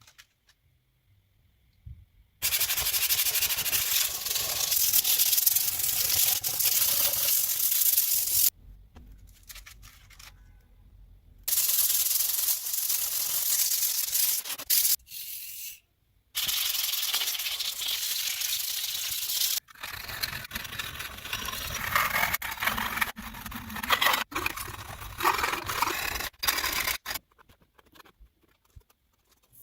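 Sanding on the handsaw: an abrasive rubbing hiss that comes in several passages of a few seconds each, cut off abruptly between them. In the last passage the strokes are uneven.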